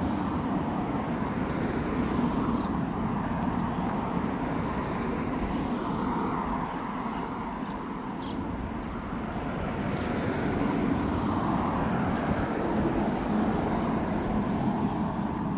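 Road traffic: a steady rumble of passing cars that eases about eight seconds in and builds again.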